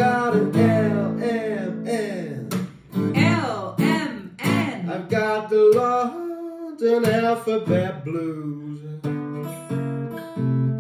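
Acoustic guitar strummed, with singing over it; near the end the singing drops out and the guitar carries on alone.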